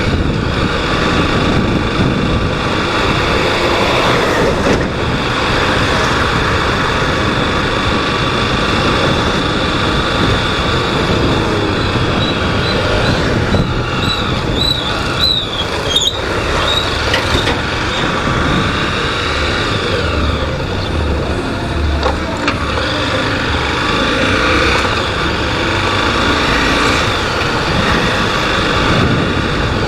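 Honda Twister 250 cc single-cylinder motorcycle running on the road, its engine note mixed with steady wind and road noise. A brief high wavering squeal comes in about halfway through.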